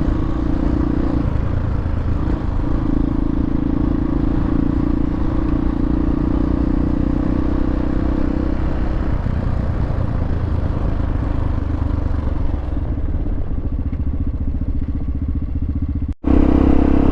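Hawk 250 dual-sport motorcycle's single-cylinder engine running under way, its note shifting with the throttle, with some rattling from the ride. The sound cuts out for an instant about sixteen seconds in and comes back louder.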